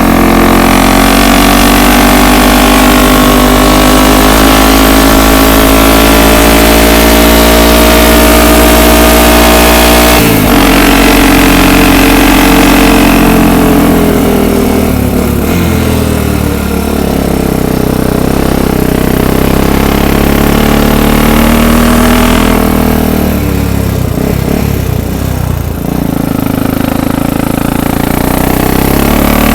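ATV engine running hard while riding, its pitch rising and falling with speed: a sudden break in pitch about ten seconds in, easing down midway, and climbing again near the end.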